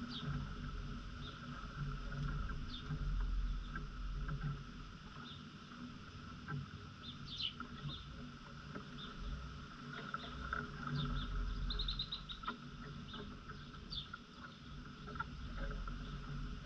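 Outdoor yard ambience: small birds give short, scattered chirps, with a quick run of chirps about twelve seconds in, over a low, uneven rumble and a steady faint hiss.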